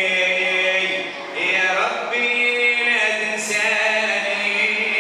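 A man chanting in a slow melodic line through a handheld microphone, holding long steady notes, with a brief break about a second and a half in before moving to a higher note.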